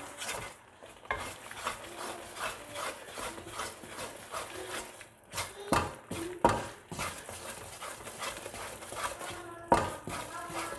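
A spatula scrapes and stirs thick semolina halwa around a steel kadhai in a steady run of strokes, with a few sharper knocks against the pan around the middle and near the end. The halwa has thickened enough to start pulling away from the pan's sides.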